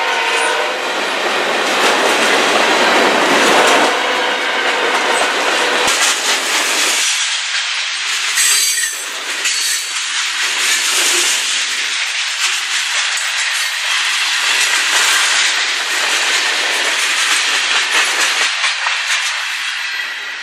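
Freight cars of a long train rolling past at speed, their wheels clattering over the rail joints. The noise falls away near the end as the last car goes by.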